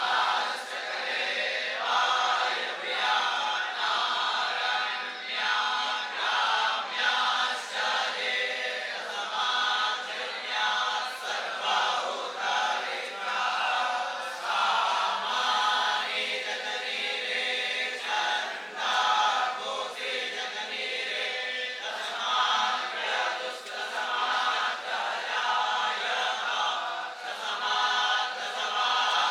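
A group of young Vedic students (batuk Brahmins) chanting mantras together in unison, steady and unbroken.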